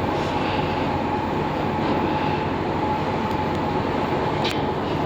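Old Fujitec passenger lift travelling down its shaft: a steady running hum and rushing ride noise with a constant whine. There is a brief tick about four and a half seconds in.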